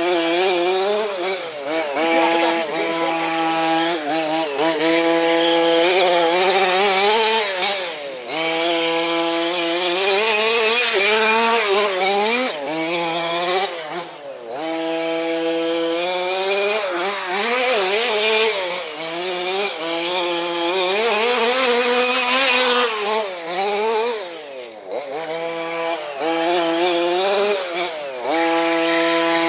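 Losi DBXL RC buggy's small two-stroke petrol engine revving hard and changing pitch constantly as the throttle is worked. It drops sharply to a low rev about eight, fourteen and twenty-four seconds in, then winds back up.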